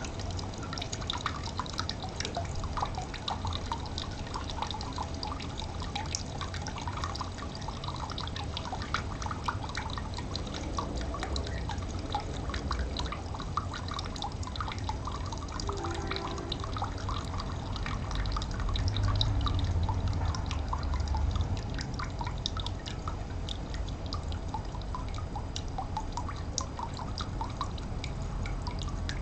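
Water of a small stream trickling, with a steady scatter of quick drips and plinks. A low rumble swells for a few seconds about two-thirds of the way in.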